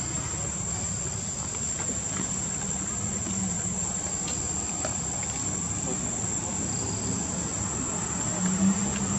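A steady, high-pitched insect drone over a low background hum.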